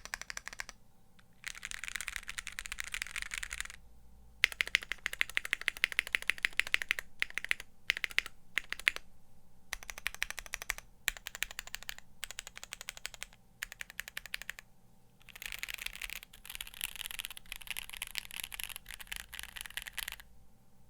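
Stock, unlubricated Gateron Mini linear switches typed on a Vast60 keyboard with a polycarbonate plate. Rapid key-press clacks come in runs of typing, broken by short pauses, with two stretches of very fast typing, one early and one near the end.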